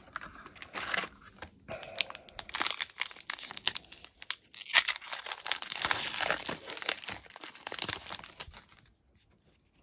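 The foil wrapper of a trading-card pack crinkling and crackling as it is handled and torn open. The rustling is dense with sharp little crackles, grows louder past the middle, and dies away about a second before the end.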